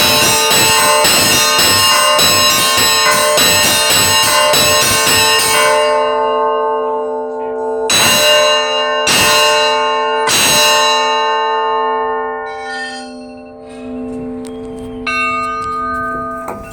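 Church bells rung close up in quick succession for about six seconds, then left ringing on. Three single strokes follow about a second apart, the bells hum away, and one fainter stroke of a different bell sounds near the end.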